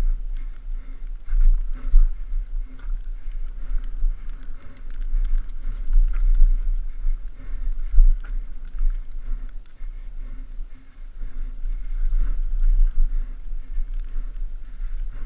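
Wind buffeting a helmet-mounted camera's microphone in surges as a mountain bike rides a rough trail, with scattered rattles and knocks from the bike over the ground.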